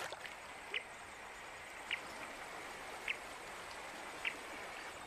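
River water running with a steady rushing sound, and a short high chirp repeating about once a second from a small animal.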